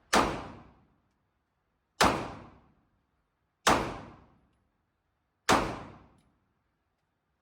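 Four pistol shots from a Taurus handgun, fired one at a time about two seconds apart. Each is a sharp crack with a short ringing echo tail.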